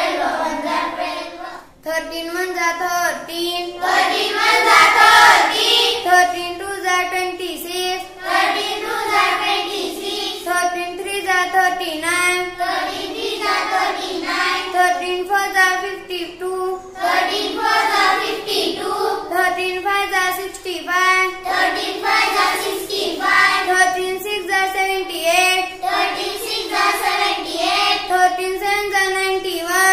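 A child, a schoolgirl, chanting the 13 times table in English in a sing-song recitation voice, phrase after phrase.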